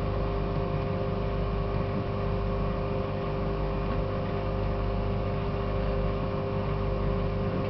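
Microwave oven running, a steady hum with several held tones throughout.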